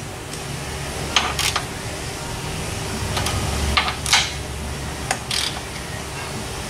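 A handful of short, irregularly spaced metallic clicks and clunks from hand tools and parts being worked in a car's engine bay while it is checked for loose components, over a steady low shop hum.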